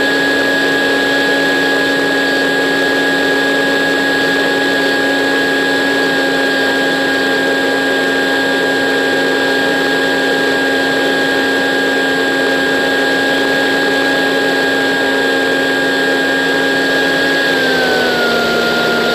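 Electric motor and propeller of a battery-powered RC model aircraft, heard from a camera on board: a steady, loud whine over rushing air. Near the end the motor slows a little and the pitch drops.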